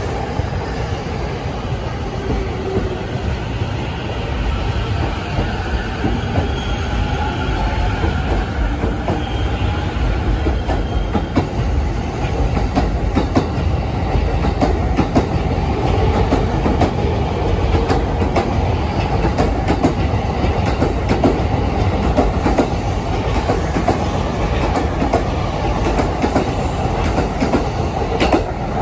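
JR East E231 series commuter electric train pulling out of the platform and running past. Its motors whine upward in pitch as it gathers speed, and from about halfway on the wheels click over the rail joints more and more often.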